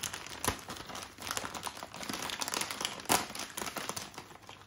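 Plastic Crax Rings snack packet crinkling and crackling as hands rummage through the corn rings inside it, with irregular sharp crackles, the loudest just after three seconds in.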